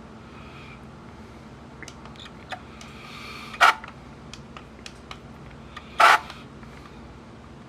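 Pioneer CT-W840R cassette deck's right-side transport playing a tape, with a steady hum, light irregular ticking, a short whir, and two sharp mechanical clunks about 3.5 s and 6 s in: the struggling noise of that transport.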